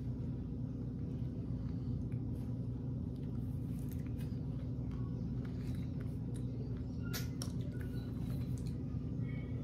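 A steady low hum with scattered small clicks and mouth sounds of someone eating a chunk of hard chili lollipop candy. The sharpest click comes about seven seconds in.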